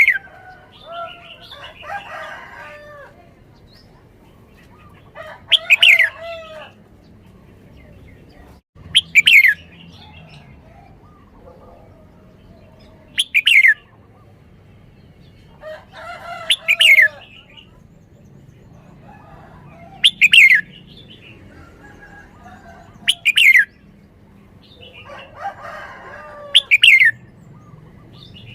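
Red-whiskered bulbul singing: short, loud, downward-sweeping phrases repeated about every three to four seconds, with softer chirping and warbling between them.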